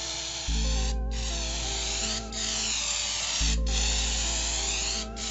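Aerosol spray-paint can hissing in repeated passes of about a second each, broken by short gaps as the spray stops and starts, over background music.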